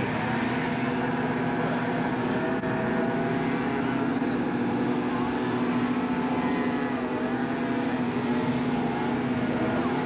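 Racing hovercraft's engine and propeller fan droning steadily as the craft runs across the water, a constant hum with only slight wavers in pitch.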